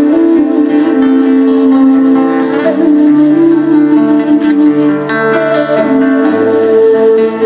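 Tuvan traditional music played live: plucked strings over long held drone tones, with the lower notes shifting every second or so.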